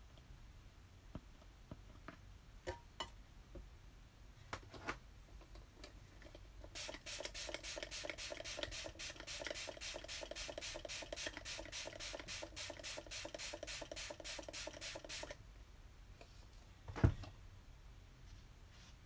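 A fast, even run of scratchy rubbing strokes, about five a second for some eight seconds, after a few scattered small clicks. A single sharp knock comes near the end.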